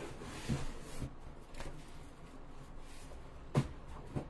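Sheets of designer series paper being handled and lifted, a soft papery rustle, with a sharp tap about three and a half seconds in and a smaller one just before the end.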